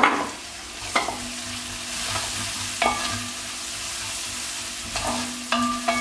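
Crushed garlic, shallots and turmeric powder sizzling in hot coconut oil in a clay pot while a wooden spatula stirs them, with a steady frying hiss and several sharp knocks and scrapes of the spatula against the pot. This is the turmeric being sautéed until its raw smell is gone.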